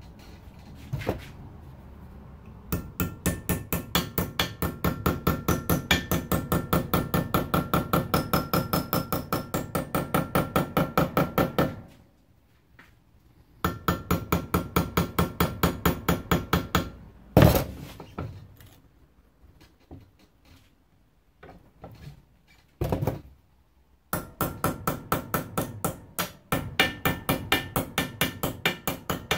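Hammer tapping over the edge of a thin metal strip held in a vise, folding a lip onto it. The blows come fast and even, about five a second, and each one rings. There are three long runs of tapping separated by pauses, with a heavier single blow in the middle.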